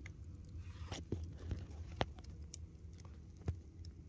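Wood fire burning inside a homemade tank wood-burning heater, giving about five sharp pops and crackles scattered over a few seconds above a low steady rumble.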